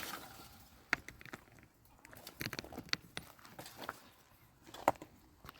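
Scattered light knocks and clicks at uneven intervals, a handful of sharp taps over a few seconds.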